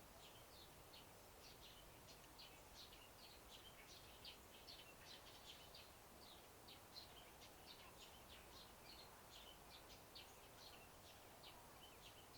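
Faint, rapid high chirping of small birds, several short notes a second, over a faint steady hiss.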